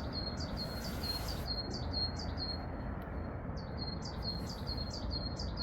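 A small songbird calling a rapid series of short, high, identical notes, each a quick upward flick that settles on a steady tone, about three a second, with a pause of about a second midway. A steady low rumble runs underneath.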